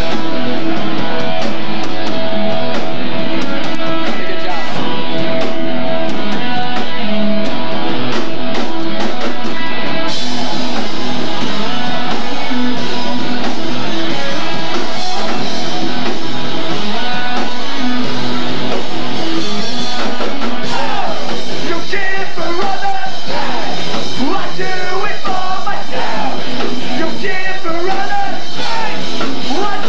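Live punk band playing loud: distorted electric guitars, bass and drums in a dense wall of sound. Shouted lead vocals come to the front in the last third.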